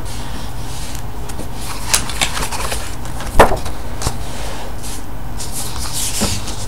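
Pages of a large art book being turned and handled on a wooden table: a few short paper rustles and knocks, the loudest about three and a half seconds in, over a steady low background hum.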